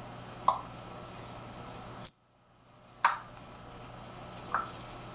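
African grey parrot making short, sharp clicks, three in all, with one loud, short, high squeak about two seconds in; the sound cuts out briefly just after the squeak.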